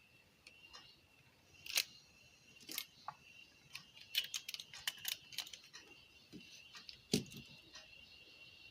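Scattered small clicks and taps of tools and plastic parts as a car stereo's front panel is taken apart, the sharpest about two seconds and seven seconds in, over a faint steady high whine.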